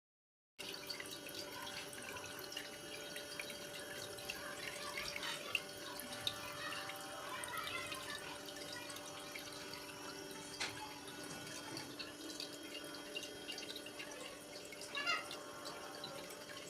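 Small homemade water fountain running: water trickling and dripping in irregular little splashes, over a steady low hum.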